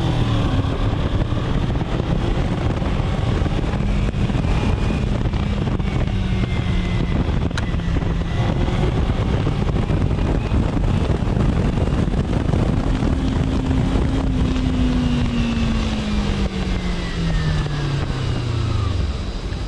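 Kawasaki Ninja 300's parallel-twin engine running under way, heard through heavy wind noise on the microphone. Its note holds fairly steady, rises a little about two-thirds of the way through, then falls steadily over the last five seconds as the revs drop.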